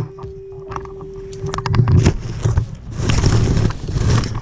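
Scuffling and thuds of a player moving hard through snow, with the body-worn camera knocked about in winter clothing. A few sharp clicks and a short steady tone come in the first two seconds, and the louder scuffles and thuds follow.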